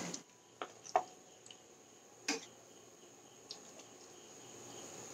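A few light clicks of a metal spatula knocking against a plate as cooked chickpeas are served onto it, the louder ones about a second in and a little past two seconds. Faint, evenly pulsing cricket chirping underneath.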